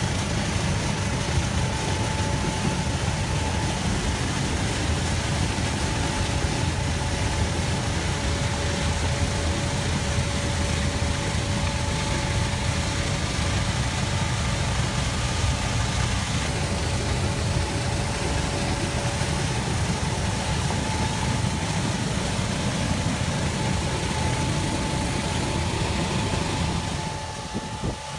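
Tractor engine running steadily while driving an auger ditch cleaner that cuts the ditch floor and throws out mud, a heavy low rumble with a faint steady whine over it. The sound drops to a lower level about a second before the end.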